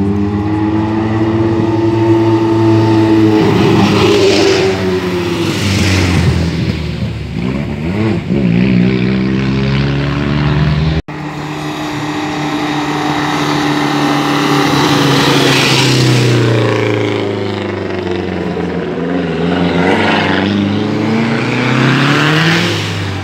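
Cars driving past one after another on a short demonstration road. Their engine notes rise and then fall in pitch as each one approaches and goes by. The sound drops out abruptly about eleven seconds in and picks up again at once.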